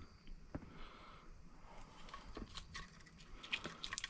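Faint handling noises from the LED marker lights and their packaging: scattered light clicks and rustles that turn into a quick run of sharp plastic clicks near the end.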